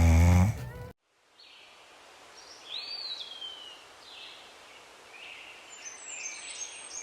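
A loud, low drawn-out sound like a voice or snore cuts off abruptly about a second in. After it, quiet outdoor ambience with birds calling: a rising then falling chirp, and more calls near the end.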